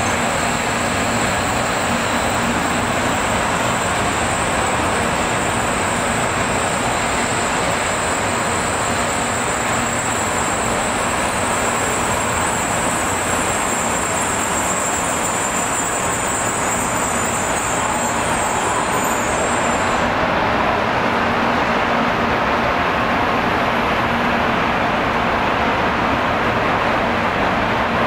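Steady vehicle noise, with a thin high whine that cuts off suddenly about twenty seconds in.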